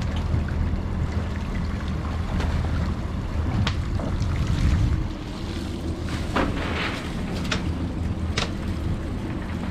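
Cast net being hauled up out of the water over a boat's side: water splashing and dripping, with a few sharp slaps and knocks. Under it runs a steady low hum from the boat's Mercury outboards idling.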